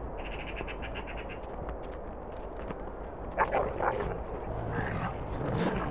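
Grey wolves growling and yelping as they play-fight, a short burst about three and a half seconds in and fainter sounds near the end, over a low steady background.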